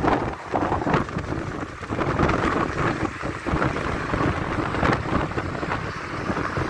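Road traffic noise, with wind buffeting the microphone in uneven gusts and a car passing close near the end.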